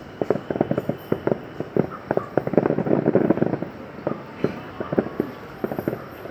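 Fireworks display going off: a rapid, irregular string of bangs and pops, thickest about halfway through.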